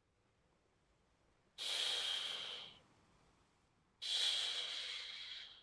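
A woman's slow breaths close to the microphone, two long airy breaths a couple of seconds apart.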